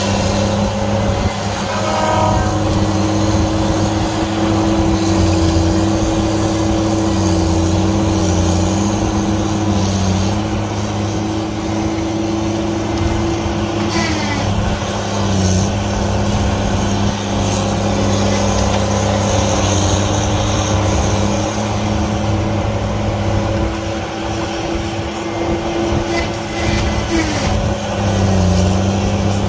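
Heavy equipment's engine running steadily under load, with a whine held on one pitch that falls away about 14 seconds in and again near the end.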